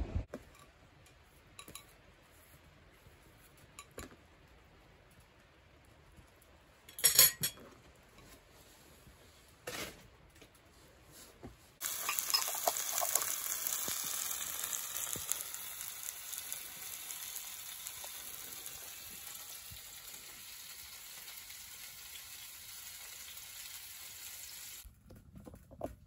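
A few sharp clicks and knocks, the loudest a double knock, then about halfway through halved bananas start sizzling in a cast iron skillet on a wood stove. The sizzle is a steady hiss that eases slightly and stops shortly before the end.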